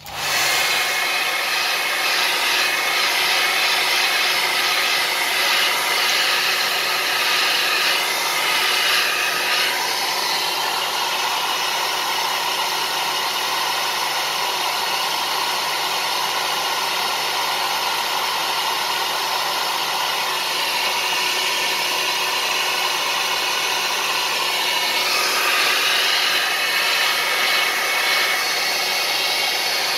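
Hair dryer running steadily, heating the phone and its new LCD so that the adhesive bonds. Its hum shifts slightly in pitch about a third of the way in and again near the end.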